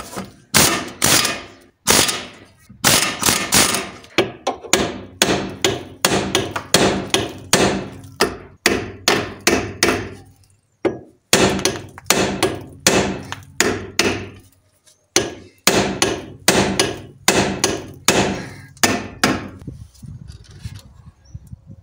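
Repeated hammer blows on a steel steering knuckle, about two a second with a couple of short pauses, stopping shortly before the end: the outer tie rod end's ball joint is being knocked free of its taper with a hammer instead of a puller.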